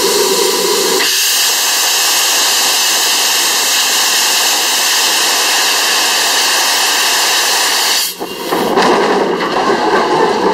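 A small saddle-tank steam locomotive's cylinder drain cocks blowing steam in a loud, steady hiss, starting about a second in. After a sudden change about eight seconds in, the hiss gives way to the locomotive running along the line.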